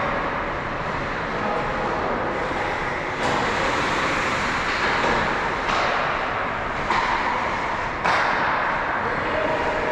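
Ice hockey rink during play: a steady noisy rush of skates scraping and carving the ice, which gets louder in abrupt steps about three, six and eight seconds in.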